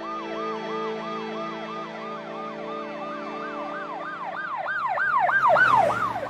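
Siren yelping, a quick rising-and-falling tone repeating about three times a second. It grows louder about five seconds in and cuts off near the end, over a low steady drone.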